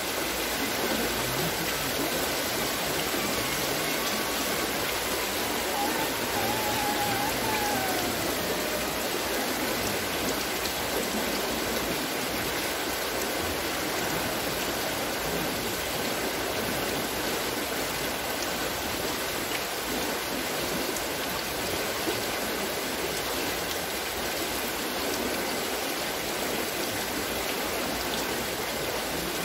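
Water splashing steadily as it pours from the scoops of a wooden water-lifting wheel (Wasserschöpfrad), an even rushing with no breaks.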